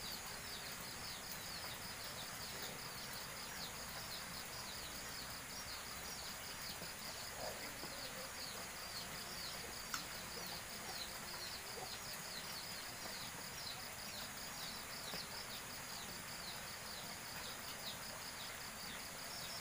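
Outdoor wildlife ambience: a steady high insect buzz with a continuous run of short, falling high chirps, several a second. A faint click about ten seconds in.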